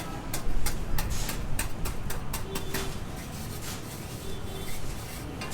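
Building-work noise: irregular sharp clicks and knocks, several a second in the first couple of seconds and sparser after, over a steady low rumble.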